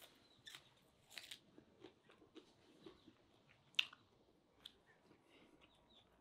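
A person eating at close range: crisp bites into a green onion stalk and bread, with chewing between them. A series of short crunches, the loudest a little under four seconds in.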